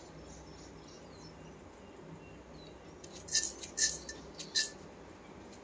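Mustard seeds and urad dal going into hot oil in a metal kadai: about four sharp clinks and crackles a little past the middle, over a faint steady hum.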